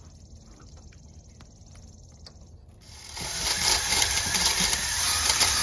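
A cylinder hone starts spinning in the bore about three seconds in, scraping rust off the pitted cylinder wall of a 289 Windsor small-block Ford with a loud, steady hiss.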